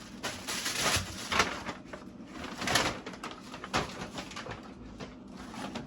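Plastic grocery packaging rustling in short bursts as items are handled and put away.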